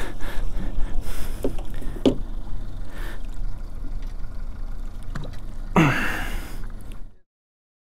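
Wind and water noise on an open fishing boat, with a few sharp knocks as a gaffed mahi mahi is hauled aboard. A brief falling gasp-like voice sounds about six seconds in, then the sound cuts out abruptly.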